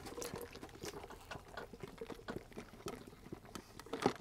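Faint eating and drinking sounds: a drink sipped through a straw from a paper cup, with small irregular clicks and crackles of chewing and food wrappers, and one sharper click near the end.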